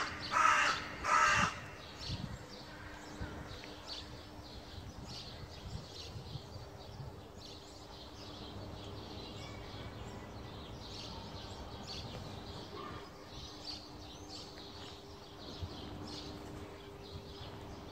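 A crow cawing three times in the first second and a half, loud and harsh. After that come faint, scattered small-bird chirps over a steady low hum.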